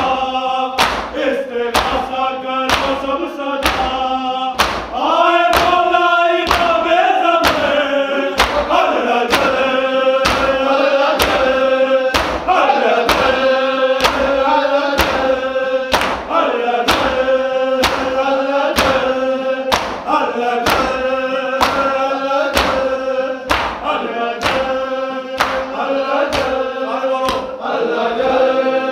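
Male voices chanting a noha lament in unison over a steady drone, with sharp beats keeping time about one and a half a second, the strokes of chest-beating (matam).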